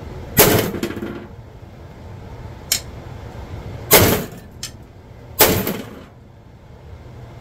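Steel being struck hard at a bench vise that holds a steel rod: three loud metal clangs, each ringing on for a moment, with two lighter clicks between them.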